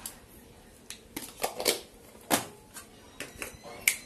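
Light clicks and taps of a small plastic spoon against a stainless steel bowl as garlic paste is spooned in; several sharp ticks scattered irregularly, the loudest near the end.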